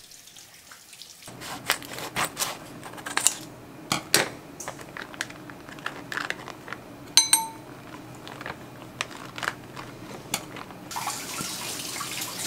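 A vacuum-sealed plastic bag crinkling as rice is squeezed out of it into a ceramic bowl, with a run of clicks and knocks and one bright ringing clink of the bowl about seven seconds in. Near the end, a steady rush like running water.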